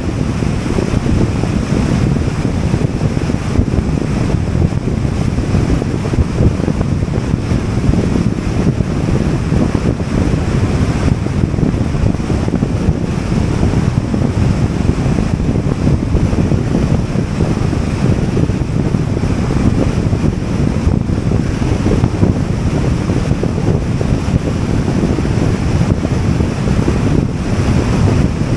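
Steady, loud wind rushing over the microphone, mixed with the low road noise of a car driving at highway speed.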